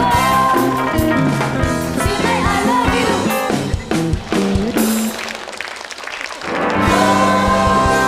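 Upbeat theme music from a band with drum kit, guitar and a sung melody. About five seconds in it thins out briefly, then comes back with full held chords.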